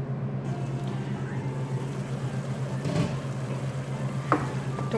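Tomato-and-onion masala simmering and bubbling in a wok on the hob, a steady sizzle over a constant low hum, with two light knocks about three and four seconds in.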